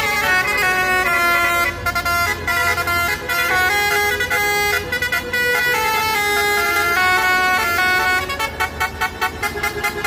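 Truck's telolet horn, a set of musical air horns, playing a tune in steady held notes that step from pitch to pitch. Near the end the notes break into quick staccato toots.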